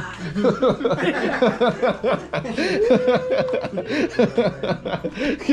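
Several voices talking over one another and chuckling, with one drawn-out vowel about halfway through.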